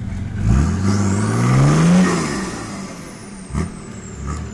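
Nissan 4WD's engine revving up for about two seconds, then falling back, as it tries to pull free with its tow ball hooked on a log. A single knock about three and a half seconds in.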